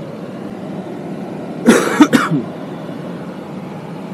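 A person coughs in a short burst of about three coughs about two seconds in, over a steady hum of vehicle road noise.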